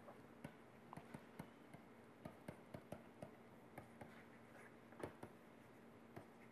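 Faint, irregular taps and scratches of a stylus tip on a pen tablet as words are handwritten, roughly two or three ticks a second.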